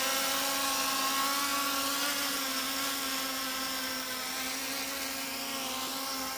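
A 3D-printed quadcopter's electric motors and propellers humming steadily in flight, holding one even pitch and growing a little fainter as it flies off.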